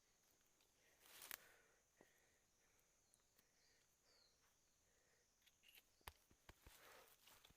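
Near silence: a faint, steady, high insect drone, with a brief rustle about a second in and light clicks and rustling near the end.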